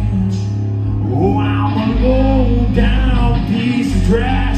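Live country-rock band playing: acoustic guitar, a second guitar and drums, with a male voice singing over them from about a second in.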